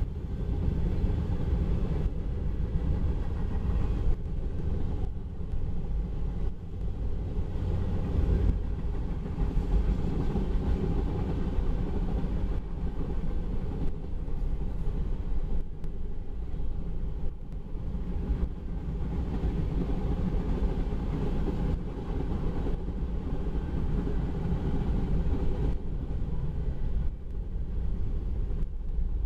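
Freight cars of a mixed manifest train, tank cars and boxcars, rolling past steadily on the rails. The wheel noise is mostly low-pitched and keeps up evenly throughout.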